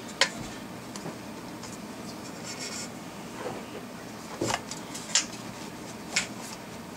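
A few short, sharp plastic clicks spread out over several seconds, with light rubbing and scratching between them: the wiring connectors on top of a fuel pump module being handled and slid apart.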